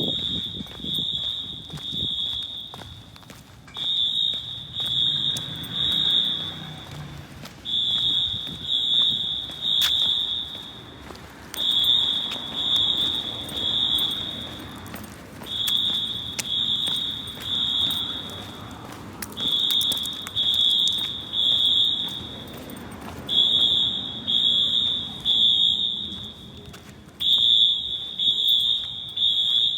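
Wheelock AS fire alarm horns on a Notifier system sounding the temporal-three evacuation signal: three short, high-pitched horn blasts, a pause, and again, repeating about every four seconds.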